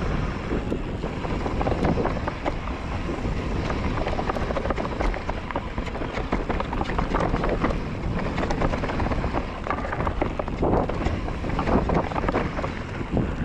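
Mountain bike riding down a rough trail: a steady rush of wind on the microphone and tyre rumble, with frequent rattles and knocks from the bike over the ground.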